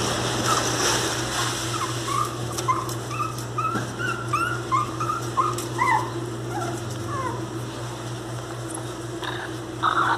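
Miniature pinscher puppy whimpering: a run of short high whines, about two a second, that die away after about seven seconds, over a steady low hum.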